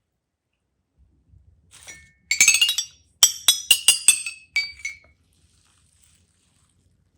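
Small hard objects clinking and tapping together with a bright ringing tone: a quick rattle of clinks, then about five sharp separate clinks, and two more before they stop.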